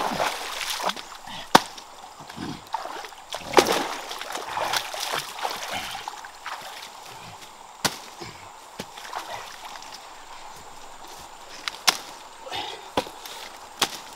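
A person wading through shallow river water, with sloshing and splashing that is loudest in the first few seconds. This is followed by a quieter stretch of rustling among plants, broken by a few sharp knocks.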